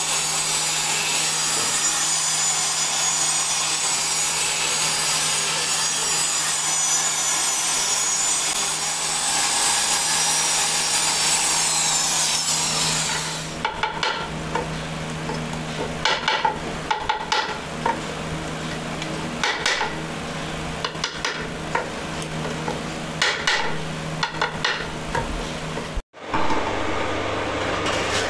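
Flexible-shaft drill running with a steady high whine as it bores small holes in wood; it winds down and stops about 13 seconds in. Then a hand chisel makes a series of short scraping cuts into the wood, with a steady low hum under it.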